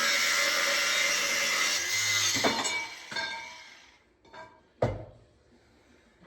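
Angle grinder cutting steel angle iron, a steady grinding noise that stops about two and a half seconds in, followed by a few metal knocks, the loudest near the end.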